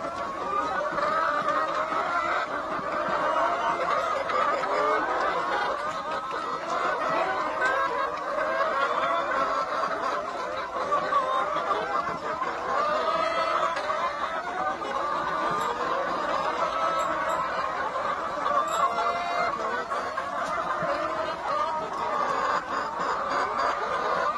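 A large flock of brown hens clucking and calling over one another in a dense, unbroken chorus.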